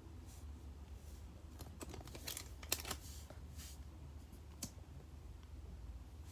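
Pokémon trading cards and their foil pack being handled at close range: scattered rustles and light clicks, with one sharper snap about a third of the way through.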